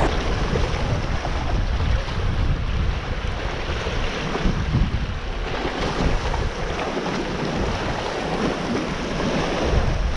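Sea waves washing and breaking against the rocks, with strong wind buffeting the microphone; a steady, unbroken rush of water and wind.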